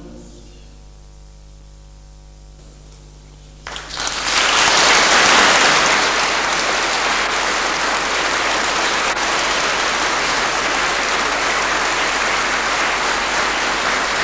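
The last chord of a male choir fades away in the church. About four seconds in, the audience breaks into loud, steady applause that lasts to the end.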